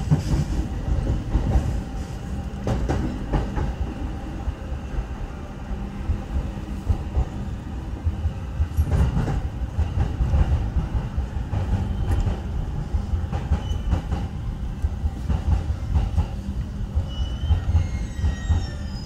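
Commuter train's wheels and running gear rumbling and clacking over rail joints as it slows into a station, heard from inside the car. Faint high squeals come in near the end as it comes almost to a stop.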